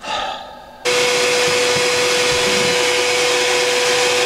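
Vacuum cleaner running steadily, its hose and wand sucking up small scraps of debris from an aluminium boat's deck, with a steady hum under the rushing air. It starts abruptly about a second in.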